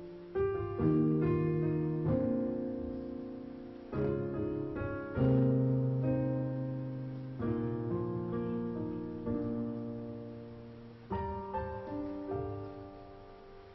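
Piano playing slow chords, each struck and left to ring and fade before the next.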